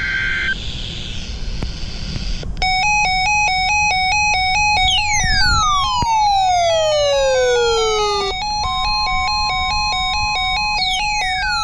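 NOAA Weather Radio warning-alarm test signal: a burst of digital data tones ends about half a second in, followed by a couple of seconds of radio hiss. Then a loud, shrill electronic alarm starts, warbling rapidly between two pitches, with falling sweeping tones layered over it midway and again near the end.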